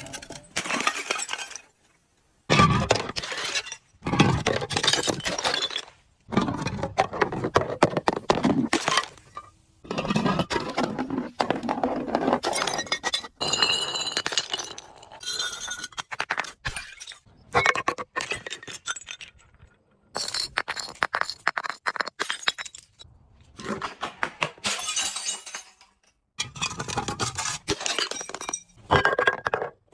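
Glass bottles being crushed and breaking, in repeated bursts of crunching with clinking shards, each a second or two long with short pauses between.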